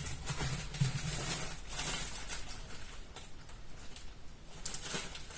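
Scattered light clicks and rustling from small parts being handled: a remote key's circuit board and its coin-cell battery.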